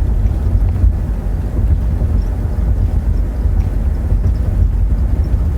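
Steady low rumble of a car driving at road speed, heard from inside the cabin: road and engine drone with some wind noise.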